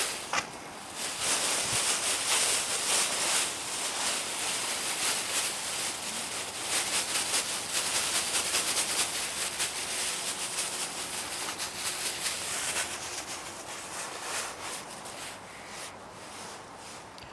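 Continuous dry rustling and scraping, made of many quick crackles, fading out over the last few seconds.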